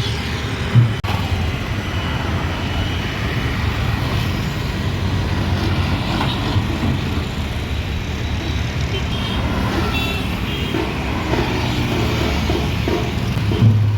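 Street traffic: motor vehicle engines and road noise, with faint voices in the mix.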